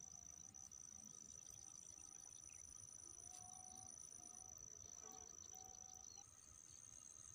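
Faint, steady high-pitched trill of crickets or similar insects in the grass. A second, higher trill joins for a couple of seconds midway, and the main trill shifts slightly higher near the end.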